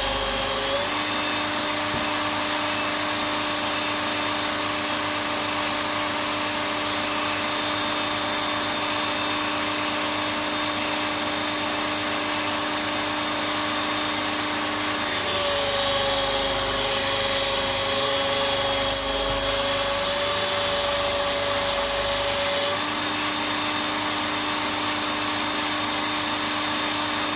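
Work Sharp Ken Onion blade grinding attachment running, its abrasive belt grinding the edge of an axe with a steady hissing rasp over the motor's whine. About halfway through, the whine shifts higher and the grinding grows louder for some seven seconds, then settles back.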